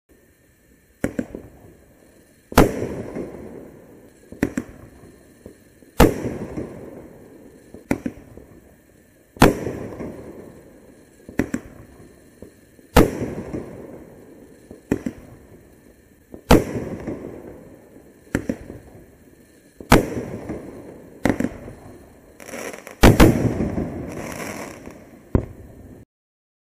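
Bright Star Sledge Hammer 8-shot firework cake firing. Each shot is a smaller bang followed about a second and a half later by a louder break bang with a trailing rumble, repeating roughly every three and a half seconds. Near the end, shots come close together for the finale.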